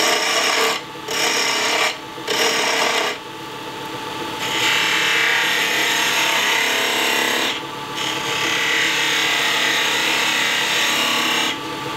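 A half-inch spindle gouge cutting a wooden bottle-stopper blank spinning on a lathe, a rasping cut. It goes in short passes for the first few seconds, then becomes one long continuous cut.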